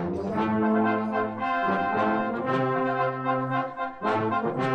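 Brass band playing a tune in held notes and chords, several instruments sounding together.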